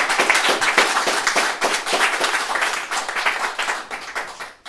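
Audience applauding, a dense patter of many hands clapping that thins out and fades away near the end.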